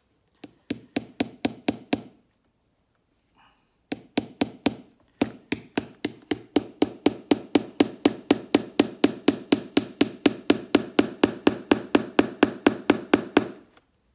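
Hammer driving nails into a leather boot sole: a short run of quick blows, a pause, then a long steady run of rapid blows, about four or five a second, that grow louder a couple of seconds in.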